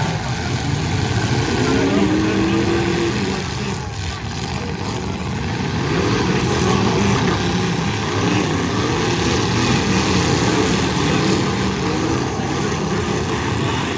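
Several big-car engines running and revving at a demolition derby, their pitch rising and falling, loudest in the first few seconds.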